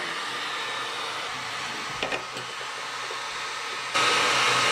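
Heat gun blowing hot air steadily onto the plastic intake port of a cyclone to soften it so the band clamps can shrink it smaller. A couple of light clicks about two seconds in; about four seconds in it gets louder, with a steady whine.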